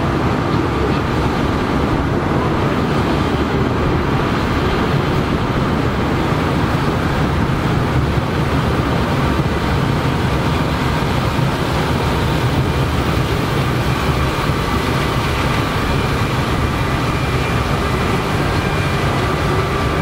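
Claas Lexion 8600 combine harvesting standing corn with its corn header: a steady mechanical din from the engine and threshing machinery, with a faint high whine running through it.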